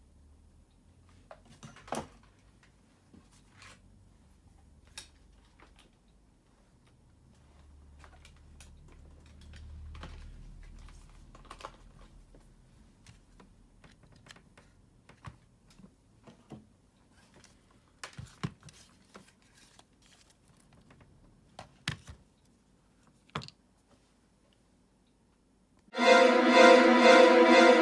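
Scattered light clicks and knocks, a dozen or so spread irregularly, some louder than others, like small hard objects being handled, with a faint low hum partway through. Music starts near the end.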